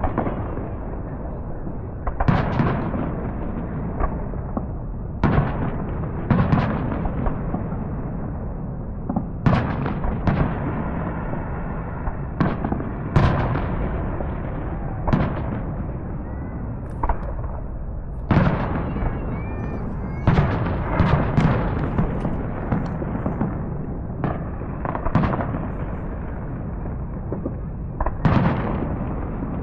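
Fireworks going off: a string of sharp booms and bangs every second or few, with a quick run of several bursts in a row past the middle, over a steady low rumble.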